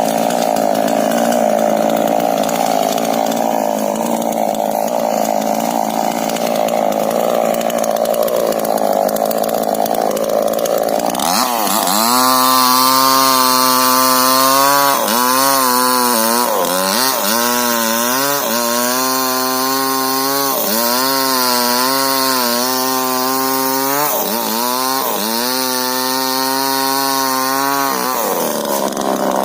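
Two-stroke chainsaw cutting rubber tree wood. For the first third the engine sounds rough under load. Then its note turns clear, dipping in pitch every second or two as the chain bites and recovering in between, before roughening again near the end.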